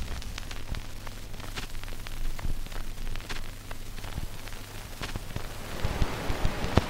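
Generated ambient noise from a Raspberry Pi noise toy: crackling static over a low hum, with irregular clicks, growing louder and denser near the end.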